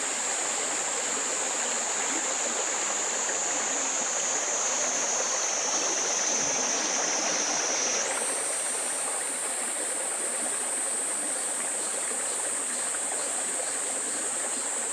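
Mountain valley stream rushing and splashing over rocks, a steady full water sound. Over it runs a high-pitched steady buzz that slowly sinks in pitch, then jumps back up about eight seconds in.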